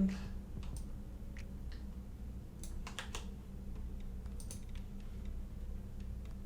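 A few scattered keystrokes and clicks on a computer keyboard, irregular and spaced out, over a steady low electrical hum.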